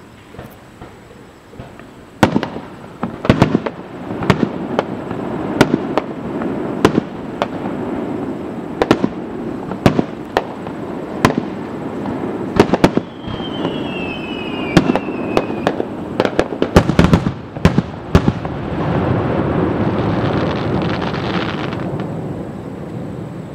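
Aerial firework shells bursting in a steady series of sharp bangs, about one a second, with a pair of falling whistles in the middle. Near the end comes a few seconds of dense continuous crackling noise that then drops away.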